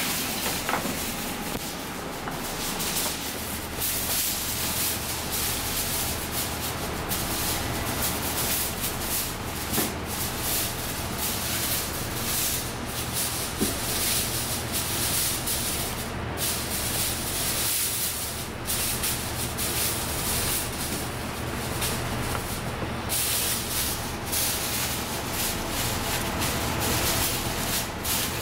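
Continuous kitchen hiss that swells and dips, with brief drops now and then, over a steady low machine hum.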